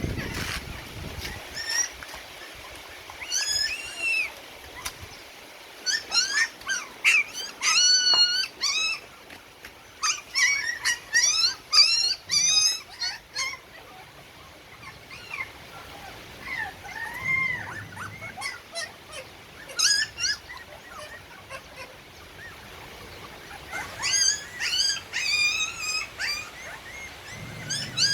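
A litter of puppies whimpering and squealing in many short, high-pitched cries that overlap in busy clusters, with a sparser stretch in the middle. This is typical of hungry puppies crowding to nurse.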